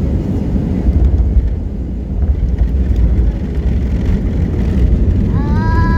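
Cabin noise of an Airbus A320 on its landing approach: a loud, deep, uneven rumble of engines and airflow. About five seconds in, a whine rises in pitch and then holds steady.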